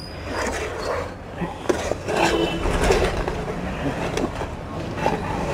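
A ladle stirring a thick mixture of molten jaggery, sugar and peanuts in a non-stick kadai, with irregular scrapes and soft knocks against the pan over a steady low rumble.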